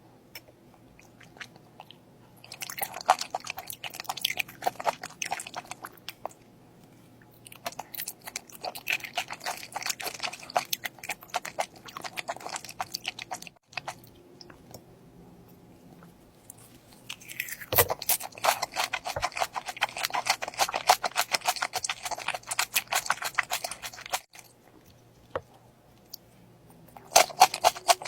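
Close-miked chewing of crunchy food, with crisp, rapid crunches in four bouts separated by short pauses.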